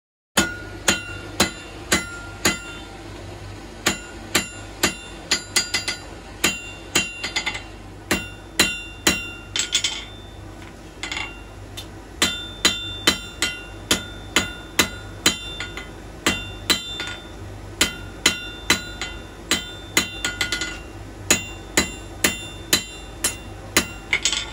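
Hammer striking metal over and over, about two or three blows a second in runs with short pauses, each blow ringing.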